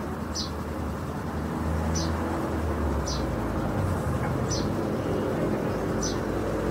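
A steady low motor rumble, with five short high chirps about a second and a half apart.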